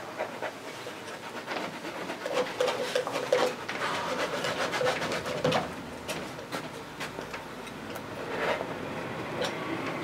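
Thick oil paint being dabbed and scrubbed onto a canvas in a quick run of short, scratchy strokes.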